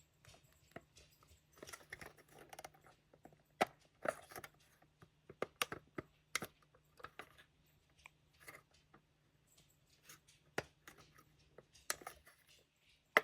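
Faint, scattered clicks, taps and light rustling of small plastic model-train kit parts being handled and fitted together by hand, with a few sharper clicks spread through.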